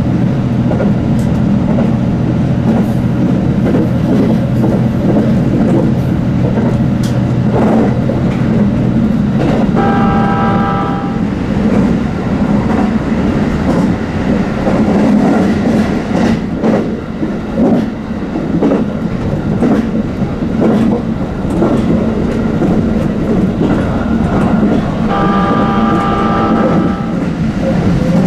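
A Senseki-Tohoku Line HB-E210 series hybrid diesel train running, heard from inside, with a steady low drone and the wheels clicking over rail joints. Twice, about ten seconds in and again near the end, a brief chord of steady tones sounds over it for a second or two.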